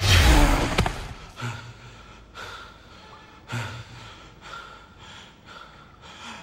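A loud, low thud with a rumble, then heavy, gasping breaths about once a second.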